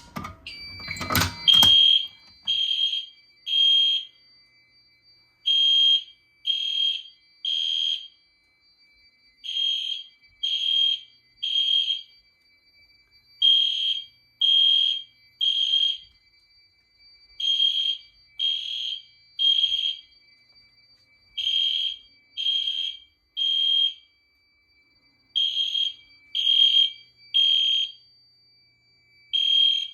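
Fire alarm horns sounding in the temporal-3 evacuation pattern: three short blasts, a pause, then three more, repeating about every four seconds, over a steady high-pitched tone. A brief loud clatter in the first second and a half is the pull station being pulled to set off the alarm.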